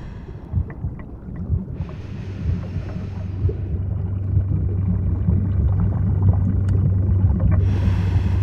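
Underwater ambience: a low rumble full of small crackles and bubble pops, with a burst of hissing bubbles about two seconds in. From about four seconds in, a steady low hum joins, like a boat engine heard through the water.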